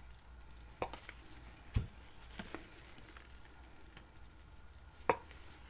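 A few light knocks and clicks from plastic paint bottles and cups being handled and set down on a table, over a faint steady hum.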